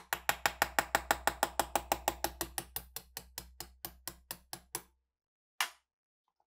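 Quick, even hammer taps on a steel pin punch, about six a second, driving a pin out of a rusted PTRD anti-tank rifle part; the taps grow a little fainter and stop about five seconds in, followed by one more separate strike.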